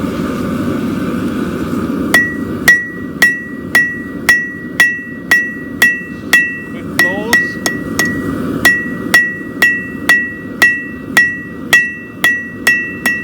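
Hand hammer striking hot steel on a 110-pound steel anvil, flattening stock for a horseshoe. About two seconds in it begins a steady run of about twenty blows, roughly two a second, each leaving a short, high ring from the anvil. A steady low rumble runs underneath.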